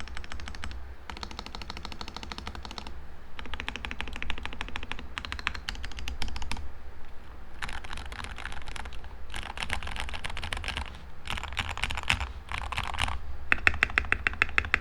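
Tape-modded mechanical keyboard with lubed Gateron Yellow linear switches and Tai-Hao Cubic keycaps, typed on quickly: bursts of rapid keystrokes separated by short pauses. Near the end comes a run of louder, evenly spaced strokes.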